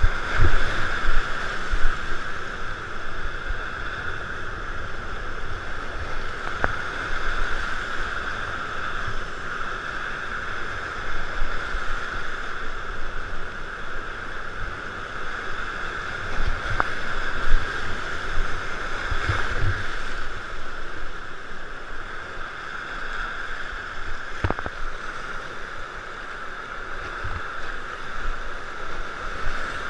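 Whitewater rapids rushing loudly and steadily around a kayak running them, with a low rumble and a few sharp knocks, about 7, 17 and 24 seconds in.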